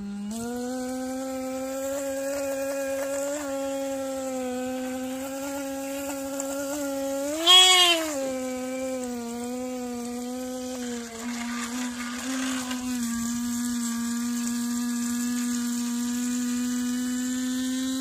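Two-wheeler electric disc horn sounding continuously while held under water in a tub: a steady tone. About seven and a half seconds in it briefly jumps higher and louder, then settles back, and it wavers for a couple of seconds later on.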